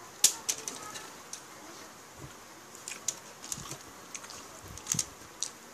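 Close-up eating sounds: irregular wet clicks and smacks of chewing and mouthing grilled chicken and rice eaten by hand, the sharpest just after the start.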